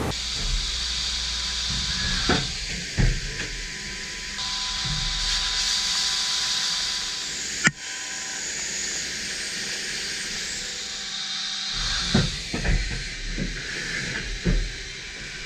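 Mazak Integrex i-200H ST multi-tasking CNC machine at work, with a steady hiss of coolant spray that swells and fades in stretches, faint steady whining tones, and scattered knocks plus one sharp click a little under halfway.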